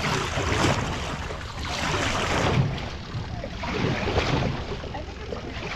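An outrigger canoe paddle pulled through the water beside the hull to swing the boat around, a splashing swish that comes three times, about two seconds apart.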